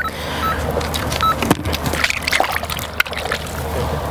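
Electronic carp bite alarm giving two short beeps as a fish takes the bait, amid rustling and sharp clicks as the angler grabs the rod at the reel.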